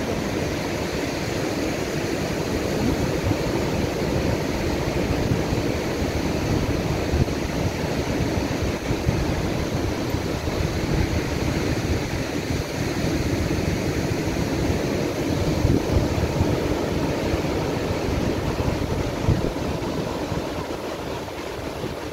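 Sea surf breaking offshore and washing over and around shoreline rocks: a steady wash of water noise.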